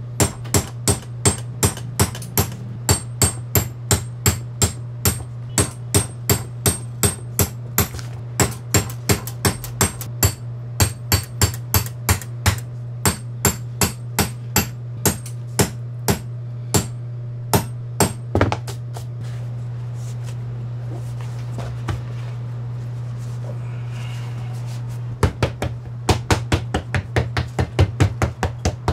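Small hammer tapping a hand hole punch through a boot-upper piece, punching a row of perforations with sharp clicks at about two a second over a steady low hum. The tapping stops past the middle for several seconds, leaving only the hum, then a quicker run of taps comes near the end.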